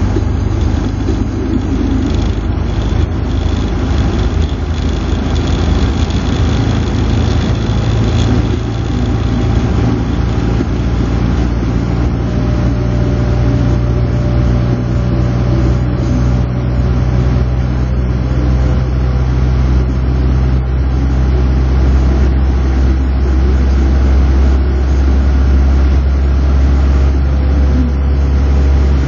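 Moskvitch 412's four-cylinder engine running steadily at road speed, heard from inside the cabin as a continuous drone with road noise. The drone settles lower about twenty seconds in.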